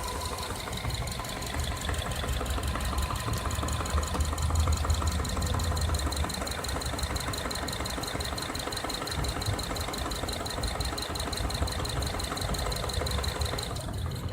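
Subaru FB25 2.5-litre flat-four engine idling with a fast, even knocking that sounds almost like pieces of plastic knocking together. This is a connecting-rod knock from cylinders 2 and 4.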